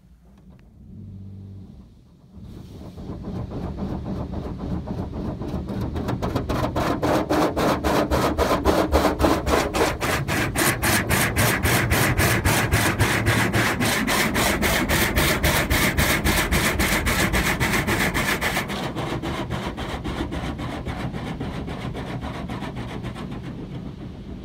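Automatic car wash spraying water against the car, heard from inside the cabin: a loud hiss with a rapid, regular pulsing. It builds up a couple of seconds in, loses its hiss about three quarters of the way through and fades off.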